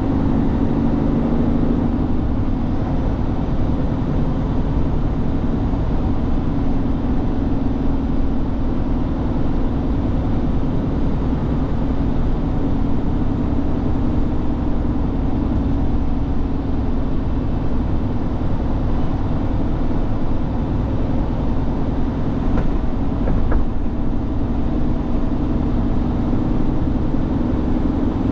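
Heavy truck's diesel engine and road noise as it drives, a steady drone with no changes in pace.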